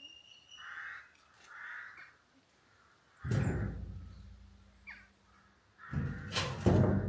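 Crows cawing: two short hoarse caws in the first two seconds. They are followed by two louder sudden bursts with a deep rumble, about three and six seconds in, and a faint steady low hum.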